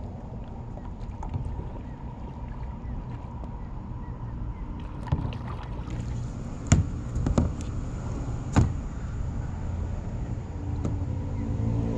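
Low rumble of water and wind around a paddle board, with a few sharp knocks a little past the middle. Near the end a steady engine hum comes in.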